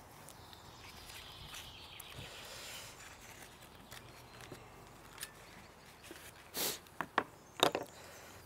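Faint background, then a few short clicks and a brief rustle about two-thirds of the way through: a spatula and a foil butter wrapper being put down on a wooden cutting board.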